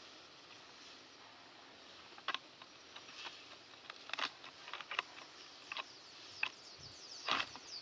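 Scattered light knocks, taps and rustles as a cut green bamboo tube and a forked stick are handled and set up among dry leaves and twigs, the loudest knock near the end.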